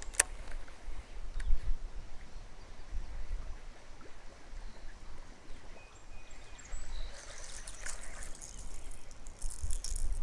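River water trickling and lapping around a kayak, with a sharp click just after the start and light rattling and clicking near the end as hands work a baitcasting reel.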